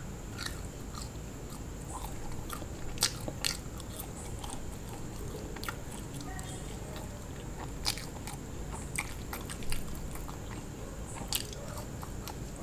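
Close-up mouth sounds of a person biting into and chewing french fries: short, irregular wet clicks and smacks, several a second at times.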